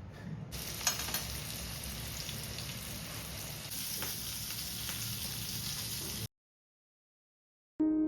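Food frying in hot oil in a pan: a steady sizzle with a few light clicks, cutting off abruptly about six seconds in. Piano music starts just before the end.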